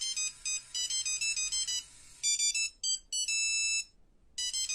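A phone ringtone: a bright electronic melody of short, high notes in quick patterns, then a longer held chord about three seconds in. After a short pause the melody starts over near the end.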